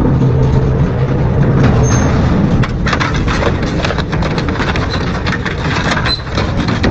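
Double-shaft metal shredder running under load, its low motor hum under a steady stream of cracks, snaps and crunches as the blades tear through metal.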